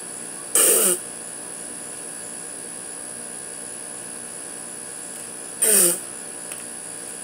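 Two forceful mouth-sprays of rum, each a short hissing burst about half a second long, the second about five seconds after the first.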